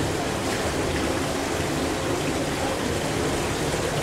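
Steady rush of agitated water churning in a small round indoor pool.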